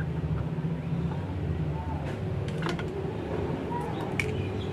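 A steady low mechanical hum, with a few light clicks of small hand tools on wire and parts.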